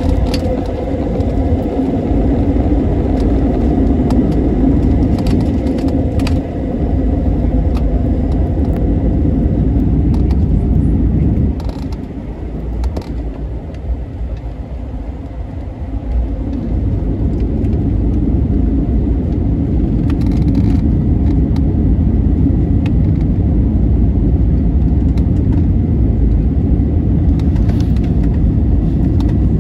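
Airbus A320-family airliner's jet engines at takeoff power heard from inside the cabin, a loud steady rumble through the takeoff roll, liftoff and initial climb. The rumble dips for a few seconds about twelve seconds in, then comes back steady.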